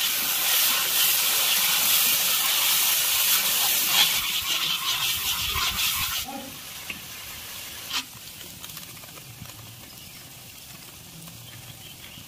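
Ground spices sizzling in hot oil in a cast-iron kadai, stirred with a metal ladle. The sizzle is loud for about six seconds and then drops to a quieter sizzle, with a single sharp click about eight seconds in.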